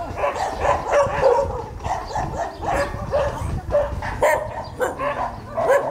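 Dog barking and yipping in quick, repeated short calls, two or three a second, over a low rumble.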